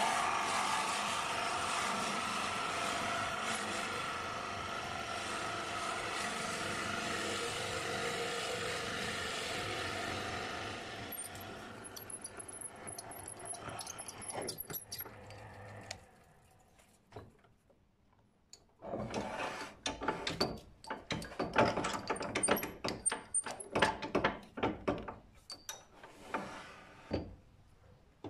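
Wood lathe running as a drill bit in a tailstock drill chuck bores into the end of the spinning wooden blank; the machine noise dies away over a few seconds about a third of the way in. Later comes a quick run of clicks and knocks from metal lathe parts being handled.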